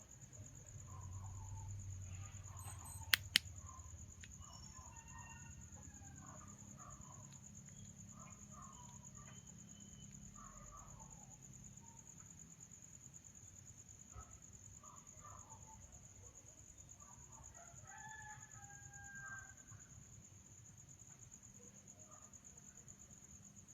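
Faint night ambience of chickens clucking in short scattered calls, with a rooster crowing once near the end, over a steady high insect trill. Two sharp clicks about three seconds in.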